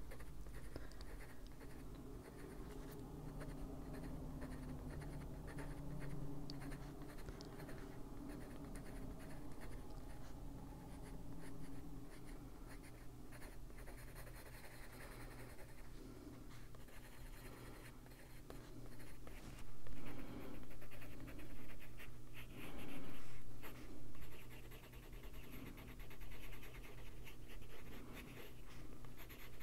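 Coloured pencil scratching on paper in many short, repeated shading strokes. The strokes grow louder and heavier for several seconds about two-thirds of the way through.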